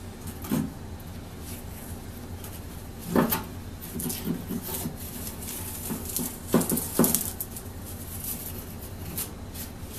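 A gloved hand brushing and knocking on a wooden workbench top while sweeping off dust. There is a knock just after the start, another about three seconds in with light tapping after it, and two knocks close together about seven seconds in, over a steady low hum.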